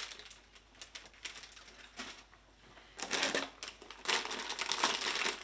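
Plastic snack packaging crinkling and rustling as it is handled, with a few light clicks and rustles at first, then a longer, louder stretch of crinkling from about three seconds in as a foil-lined chip bag is picked up.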